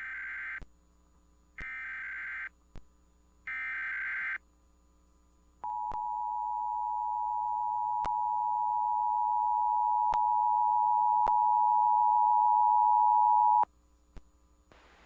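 Emergency Alert System broadcast signalling: three short bursts of SAME header data, a warbling digital screech about a second apart, followed by the EAS attention signal, a steady two-tone 853/960 Hz tone that sounds for about eight seconds, growing louder, then cuts off. This opens the station's Required Monthly Test.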